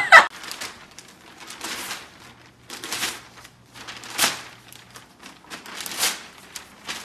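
A brief sharp sound at the very start, then a golden retriever tugging at a newspaper in its mouth: irregular paper rustling and crinkling.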